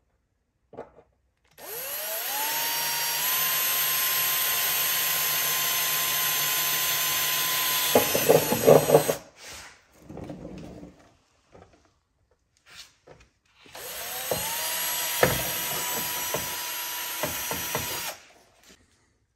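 Cordless drill boring holes through a sheet-steel rocker panel, in two runs. Each run the motor spins up to a steady whine, and the first ends in a second of loud, uneven chatter as the bit works through.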